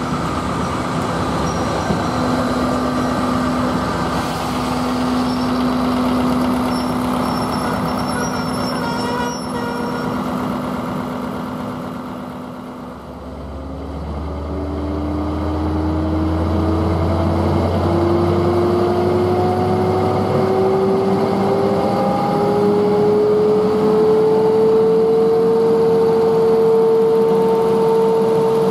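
GBRf Class 73/9 electro-diesel locomotive hauling the test train slowly through the station, then picking up power after being checked at a signal: a steady hum for the first half, then about halfway a deep engine rumble comes in and a whine climbs slowly and steadily in pitch as the train gathers speed.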